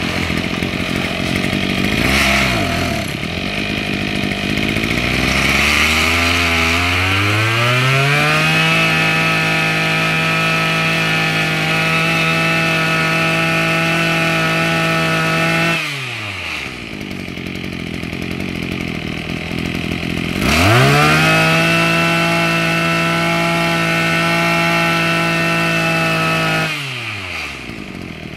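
Maruyama MBS2630T 26cc two-stroke brush-cutter engine idling, then revved up to a steady high speed and held for about eight seconds before dropping back to idle. Halfway through it is revved up quickly a second time, held for about six seconds, and falls back to idle near the end.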